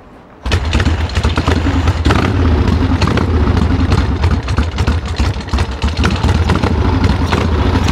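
Motorcycle engine running loudly at a steady idle, with an uneven clattering beat; it comes in abruptly about half a second in.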